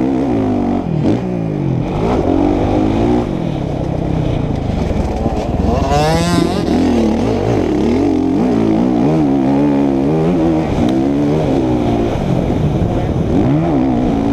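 85cc two-stroke motocross bike engine, heard from on the bike, revving up and dropping back again and again through the gears as it is ridden. About six seconds in the revs shoot sharply up.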